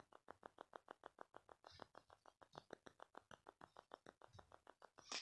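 Near silence, with a faint, even ticking about eight times a second.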